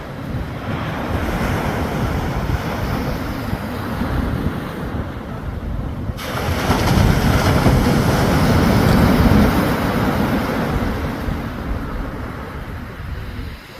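Sea surf washing on the shore, with wind buffeting the microphone in a low rumble; the surf grows louder about six seconds in.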